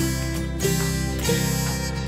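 Background music led by plucked acoustic guitar, with a new chord sounding about every two-thirds of a second.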